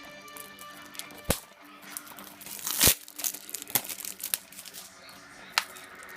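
Plastic shrink-wrap on a DVD case crinkling and tearing as it is pulled off, with several sharp clicks and snaps, the loudest about three seconds in. Quiet background music plays underneath.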